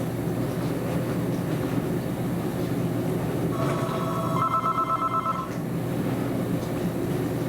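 Dishwasher running with a steady low hum and wash noise. About three and a half seconds in, a telephone rings for about two seconds over it.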